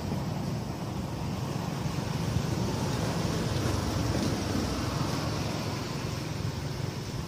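Steady low rumbling background noise outdoors, with no distinct calls or knocks.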